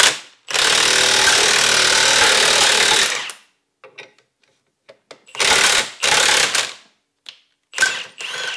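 Cordless impact wrench hammering on a ball joint press screw in three bursts, a long one of nearly three seconds, then two shorter ones, with light clicks between. The press is pushing a U-joint cap out through the yoke ear of a Ford Super Duty front axle shaft.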